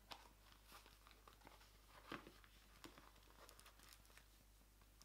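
Very faint handling sounds of a leather sunglasses case being worked open in the hands: soft rustles and light clicks scattered through, the strongest about two seconds in, over a steady low hum.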